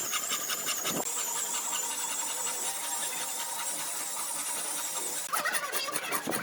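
Woodworking power tool running steadily with a high whine, with rapid repeated scraping strokes at the start and again in the last second.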